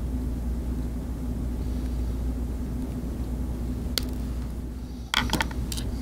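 Small flush cutters snipping the protruding tip of the center conductor on an RG59 coax cable: a single sharp click about four seconds in, then a few quick clicks and knocks a second later, over a steady low hum.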